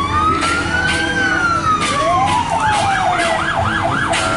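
Emergency-vehicle sirens sounding together: one wails, rising to a peak about a second in and then falling slowly, while another starts a fast yelp, about four cycles a second, partway through. A low engine hum runs beneath.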